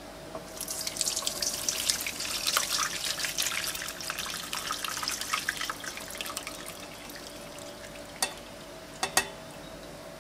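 Butterfly pea and ginger decoction poured from a steel pot through a fine mesh strainer into a stainless steel bowl, splashing for about five seconds and then tailing off to a dribble. A few sharp clicks come near the end.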